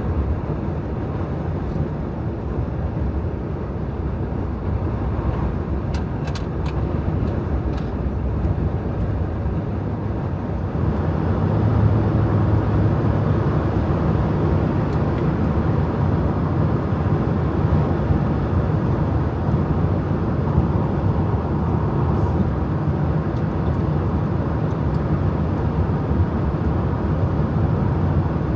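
Car driving at road speed: steady tyre, road and wind noise with a low drone, growing louder about eleven seconds in.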